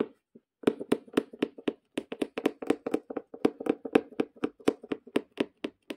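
Punch needle repeatedly piercing fabric stretched taut in an embroidery hoop: a fast, even run of sharp taps, several a second, starting under a second in, as it lays a diagonal row of loop stitches.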